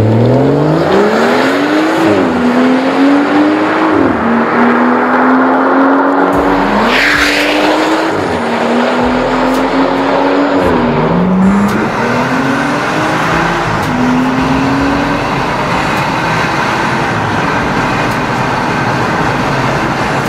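BMW 340i's turbocharged 3.0-litre straight-six, breathing through a Fi Exhaust valved catback and catless downpipe, accelerating hard through the gears: the note climbs and drops back at each upshift, four times, then runs on a little quieter with shorter rises.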